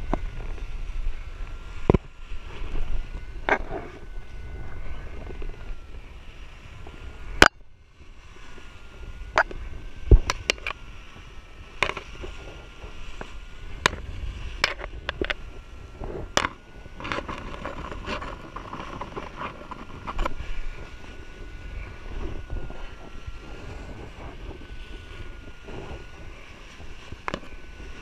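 Wind rumbling over a camera microphone during a descent under a reserve parachute, broken by many sharp clicks and knocks as paraglider lines and risers are gathered in by hand and knock against the camera and harness. A faint steady tone that wavers slightly in pitch sounds underneath.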